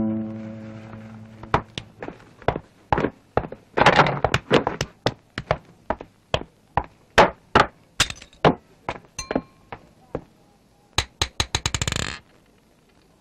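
A held musical tone fades out, then a run of sharp, irregularly spaced knocks and clinks, a few with a short ringing tail, ending in a quick flurry of clicks near the end.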